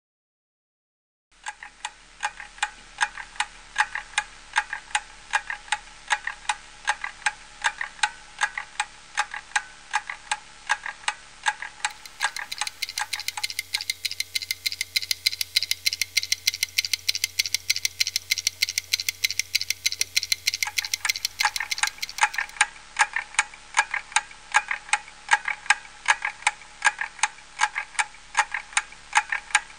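Wall clock ticking, a quick, even run of sharp ticks that starts about a second in. A low hum and a hiss join the ticking for about ten seconds in the middle.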